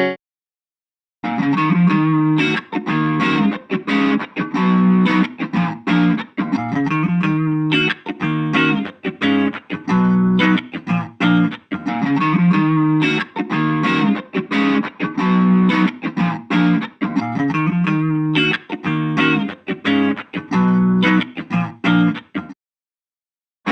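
Electric guitar played through a mini practice amplifier: a repeated riff of picked notes and chords that starts about a second in and stops about a second before the end.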